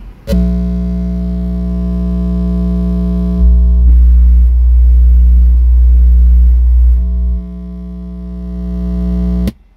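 A 60 Hz bass test tone played through two Soundstream XXX 15 subwoofers driven by two Taramps Smart 3 Bass amplifiers, heard from inside the truck cabin as one steady low tone with a stack of overtones. It starts suddenly, gets louder a few seconds in for about four seconds, drops back, and cuts off just before the end. This is an SPL burp test that peaks at about 137 dB.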